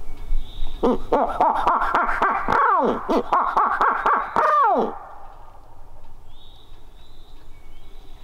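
Barred owl hoot imitation, a locator call given to make a roosted turkey gobbler gobble: a loud, close series of hoots starting about a second in and lasting about four seconds, ending on downward-sliding notes.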